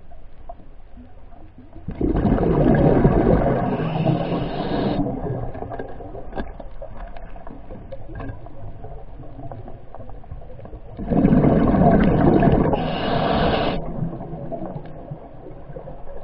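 Underwater: a diver's exhaled breath bubbling out twice, each burst of bubbles lasting about three seconds and starting and stopping sharply, with quieter water noise between.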